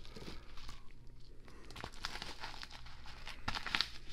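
Packaging being handled and crinkled as a card order is unpacked: irregular small crackles and rustles, with a louder burst of crinkling about three and a half seconds in.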